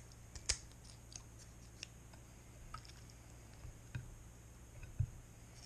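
Scattered faint clicks and snips of kitchen shears cutting the fins off redtail perch, with light taps and knocks of the fish and shears on a ceramic plate. The sharpest click comes about half a second in, and a duller knock about five seconds in.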